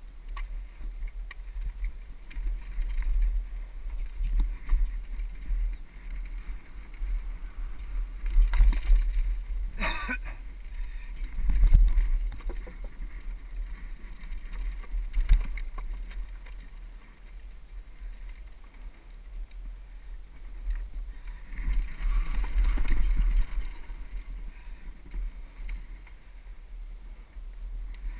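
Mountain bike descending a rocky trail and wooden plank boardwalk: a steady wind rumble on the microphone, the bike rattling over rough ground and planks, with sharp knocks from the wheels hitting rocks and boards, the loudest about ten seconds in.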